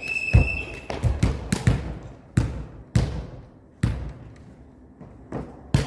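A ball being struck and bouncing during a volleyball rally: a string of sharp, irregular thumps. A short steady whistle tone sounds just at the start.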